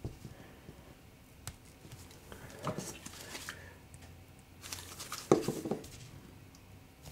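Faint scraping and clicking of a thin metal pry tool being worked into the seam of an iPhone 12 Pro's firmly glued display. There are two short runs of scrapes, a little under halfway and again past the middle.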